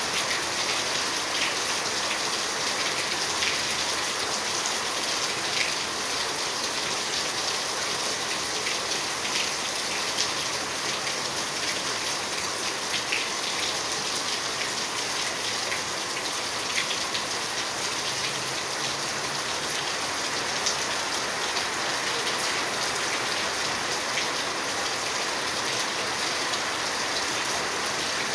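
Steady rain falling: an even hiss of downpour with many small drop ticks scattered through it.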